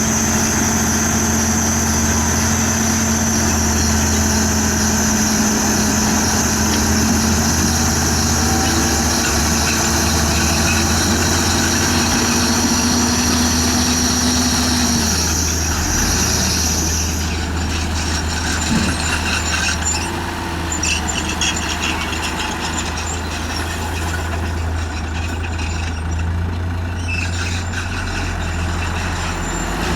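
Komatsu bulldozer's diesel engine running steadily with a high whine, which stops about halfway through; after that the sound turns to a rougher, uneven clatter.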